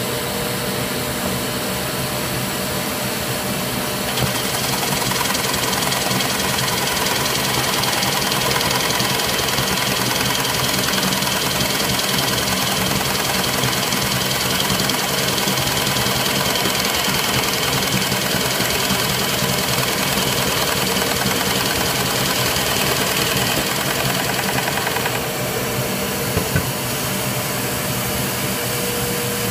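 Shop vac running steadily for dust collection. From about four seconds in until about twenty-five seconds it is joined by a small benchtop drill press running and boring a European hinge cup hole in a cabinet door.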